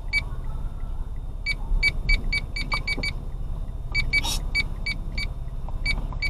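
Steady low rumble of a car on the move, heard from inside the cabin, with about fifteen short, high electronic beeps at irregular intervals. A brief hiss comes about four seconds in.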